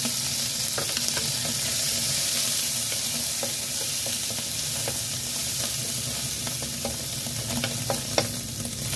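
Garlic, shallots and shredded dried seafood sizzling steadily in hot oil in a nonstick wok while being stir-fried with a wooden spatula. Scattered light taps and scrapes of the spatula on the pan, with a sharper knock about eight seconds in.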